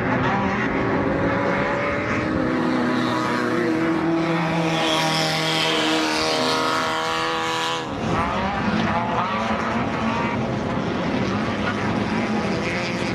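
Desert off-road race truck engines running hard at high revs. One engine holds a steady high pitch for several seconds before the sound breaks off abruptly about eight seconds in, and engine noise carries on after.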